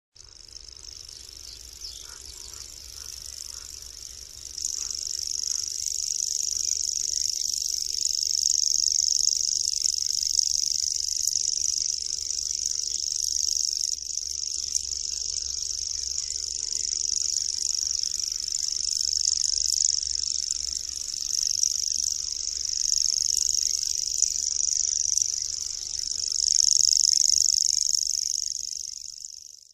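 Common grasshopper warbler (Locustella naevia) singing its reeling song: one continuous, high, insect-like trill with no break, growing louder about four seconds in.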